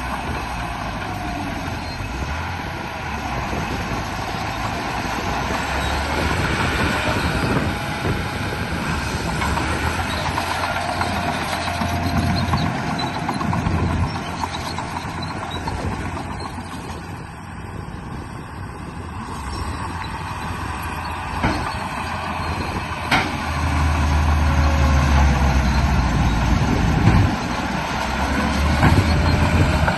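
Radio-controlled bulldozer working: a steady engine-like rumble, with a motor whine rising and falling in pitch as it drives and pushes. There are a couple of sharp clicks in the second half.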